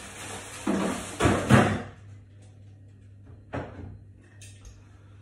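Someone rummaging in a kitchen cupboard: rustling, with two loud knocks about a second in, then a single sharp click like a cupboard door shutting about three and a half seconds in.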